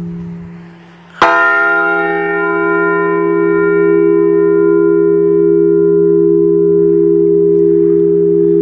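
A replica Liberty Bell is struck once about a second in: a sharp clang, then a long ring in which the higher tones fade within a few seconds while a low hum carries on. The dying ring of the previous strike is heard before it.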